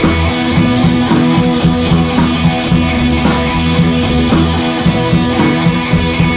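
Loud rock music with guitar and a drum beat.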